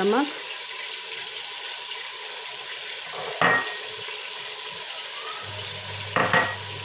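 Mutton and whole spices sizzling in hot oil in an aluminium pressure cooker, a steady hiss, with a couple of short clinks around the middle and near the end.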